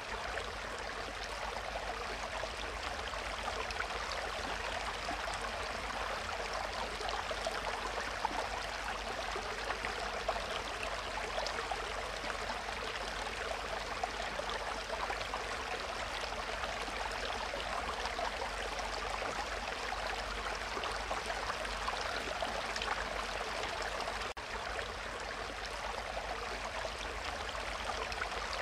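Steady rush of running water from a small stream spilling into a pond, with one momentary dip about 24 seconds in.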